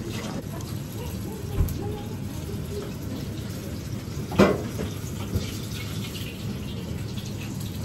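Steady rushing kitchen noise from the tempura counter, with two sharp clacks, the louder about four and a half seconds in.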